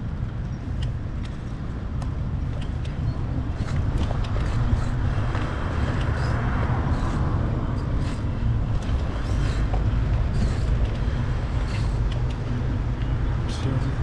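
Road traffic: a vehicle passes near the middle, its tyre noise swelling and fading over a steady low rumble.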